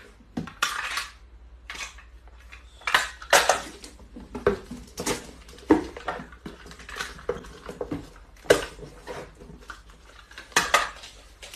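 Irregular clatter and clinking of hard objects, a dozen or so sharp knocks at uneven intervals.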